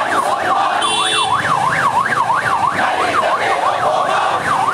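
Electronic siren yelping in fast, even up-and-down pitch sweeps, about four a second, without a break.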